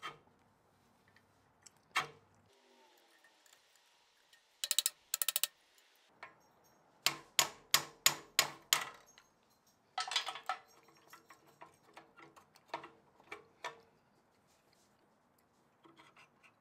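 Metal parts of a 1938 Craftsman scroll saw's upper blade plunger and clamp clicking and knocking as they are worked loose by hand: a quick run of clicks about five seconds in, a louder string of about four clicks a second after about seven seconds, then lighter scattered taps.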